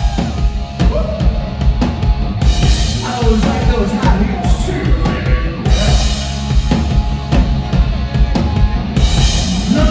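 Live rock band playing loud: a drum kit keeps a hard-hitting beat under electric guitar and bass.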